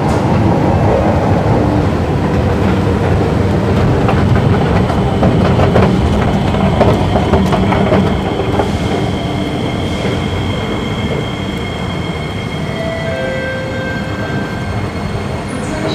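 Electric MRT train running past on an elevated station track: a loud rumble of wheels on rail with a steady high electric whine, the rumble easing off over the second half.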